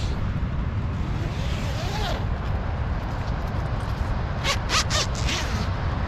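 The door zipper of a Fjällräven Abisko View 2 tent being pulled open, with rustling of the tent fabric and a quick run of sharp zipper strokes about four and a half seconds in. A steady low rumble runs underneath.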